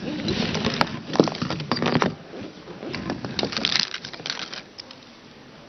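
A cluster of press microphones on a table being pushed and rearranged by hand, picked up through the microphones themselves as a run of knocks, clicks and rustling handling noise. It dies down about four and a half seconds in.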